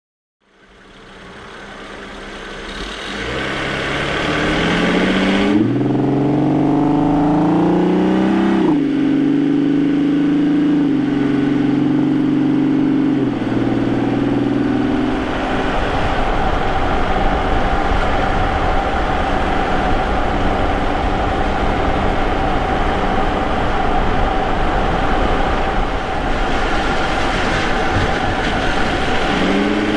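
Vauxhall Omega's 3.2-litre 24-valve V6 fading in and accelerating, heard from a microphone in the engine bay by the K&N air filter: the engine note climbs, drops twice as the four-speed automatic changes up, then holds steady. After about fifteen seconds the engine sinks under steady road and tyre noise as the car eases off, and the engine note rises again near the end.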